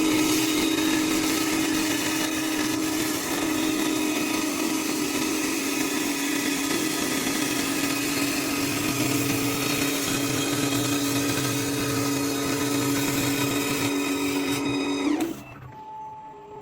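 CNC wood lathe running and machining a wooden workpiece: a steady motor whine over dense cutting noise, which cuts off sharply near the end.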